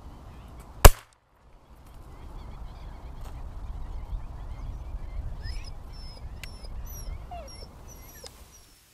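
A single shotgun shot about a second in, fired at a duck during a hunt. Afterwards a low rumbling noise, with short high bird chirps in the second half.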